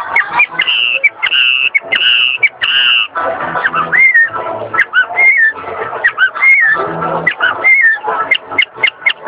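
A man imitating birdsong with his mouth: four level, high whistled notes in a row, then a quick run of chirps and up-and-down warbling whistles mixed with sharp clicks.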